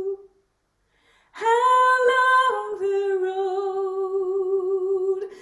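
A woman singing unaccompanied: after a short pause, two long held notes, the first higher, dropping to the second about two and a half seconds in.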